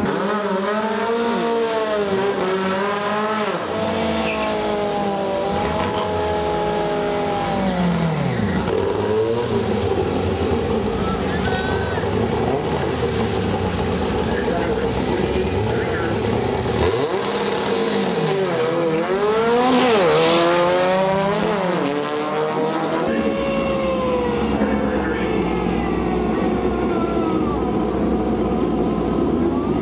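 VW drag-race car engines revving and accelerating, their pitch climbing and falling again and again as they rev and shift. About twenty seconds in comes the loudest moment, a hard rev with a rush of tyre and exhaust noise.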